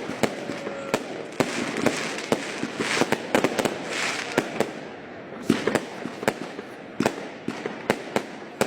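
Fireworks display: a rapid, irregular series of sharp bangs from bursting shells, with crackling fizz swelling up about three and four seconds in.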